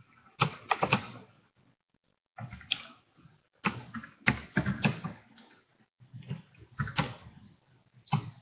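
Computer keyboard being typed on in short, irregular clusters of clicks with pauses between them, as a text message is answered.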